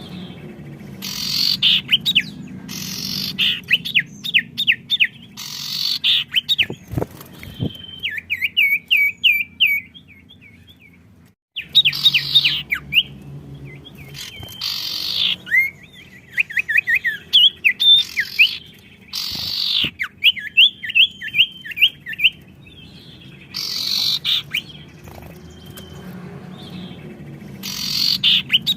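Songbirds singing and answering each other: loud, bright chirping phrases alternating with fast trills of short repeated notes. The song breaks off briefly about eleven seconds in, then resumes.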